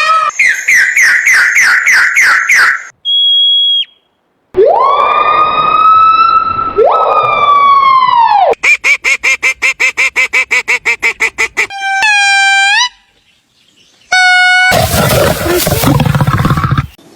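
A quick succession of different animal calls, each cut sharply into the next. First come repeated falling chirps and a short steady whistle. Then a long held call, a fast pulsing trill and short swooping calls, and near the end a loud harsh call.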